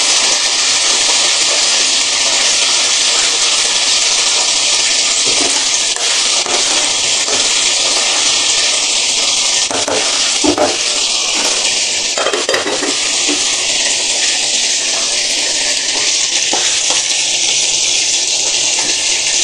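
Steady loud hiss of stovetop cooking on a gas burner: a pot of sinigang boiling hard, and near the end dried milkfish frying in oil. A few sharp clinks of a utensil against the pot come about ten to thirteen seconds in.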